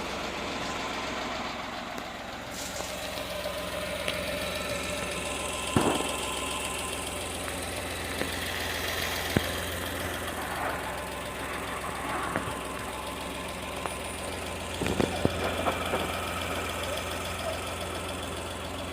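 Fiat Argo engine idling steadily, with several sharp knocks and brief higher squeaks from the clutch as the pedal is pressed. It is a clutch noise that was cured by replacing the clutch kit.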